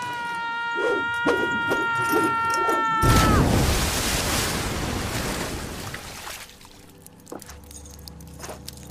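A boy's long, held scream while falling through the air, cut off about three seconds in by a big splash into a swimming pool. The splash's water noise fades away over the next few seconds, leaving faint knocks and drips.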